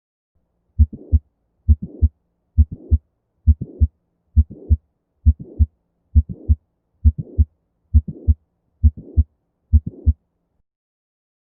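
Recorded human heartbeat, about 67 beats a minute: eleven evenly spaced lub-dub pairs of dull thumps, with a murmur heard alongside the two heart sounds of each beat.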